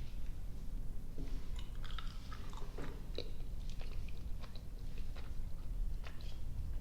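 Close-miked chewing of soft, sticky gummy and marshmallow candy: irregular small wet clicks and smacks from the mouth.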